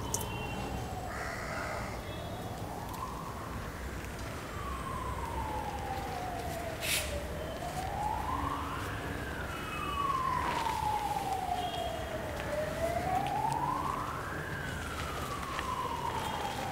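Emergency vehicle siren wailing, its pitch sliding slowly down and then back up in long cycles of about five and a half seconds.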